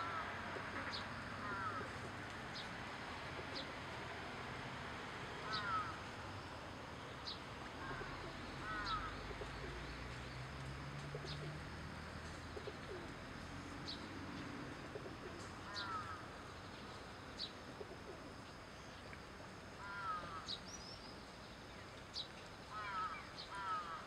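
Wild birds calling around a pond: a short call of two or three quick falling notes repeats every few seconds, with brief sharp high chirps scattered in between, over a faint steady background hiss.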